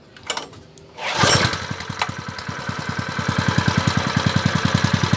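Honda GX160 single-cylinder four-stroke engine starting about a second in and settling into steady running with even firing pulses. This is a test run after its carburettor float needle, which had let fuel flood into the crankcase, was cleaned.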